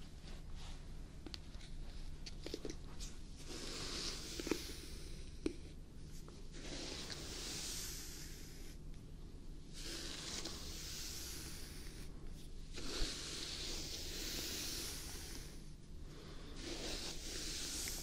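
Hairbrush bristles drawn slowly through long hair close to the microphone: about five long, hissing strokes of a second or two each, with a few light clicks between them.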